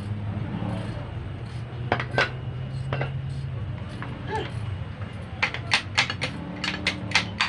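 Metal alternator parts clinking as they are pulled apart and handled, a few separate clinks and then a quick run of sharp clinks near the end.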